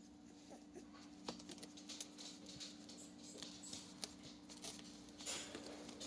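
Faint scratching and shuffling of a two-week-old puppy crawling over acoustic foam, with scattered small clicks, over a steady low hum.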